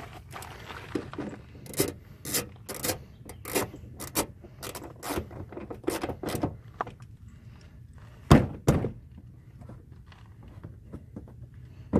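Tool and fastener noise as the screw is driven back into the HHR's wheel-well cover with a socket: irregular clicks and scrapes about twice a second, then two heavy knocks close together about eight seconds in.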